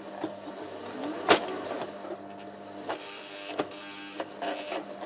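Brother XL-2250 domestic sewing machine running a zigzag stitch, its motor humming steadily, with a few sharp irregular knocks. The knocks and braking come from the thread catching, which the repairer later traces to a notched rib on the underside of the needle plate.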